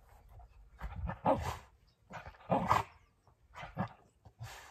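Dog giving short vocal bursts about four times; the two loudest come about a second and about two and a half seconds in.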